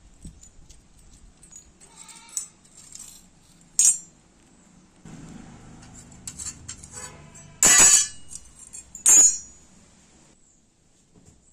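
Cut pieces of a rusty steel saw-blade disc clinking and scraping as they are pulled apart and moved about on a concrete floor. There are a few sharp metal clanks, and the two loudest come close together about eight and nine seconds in.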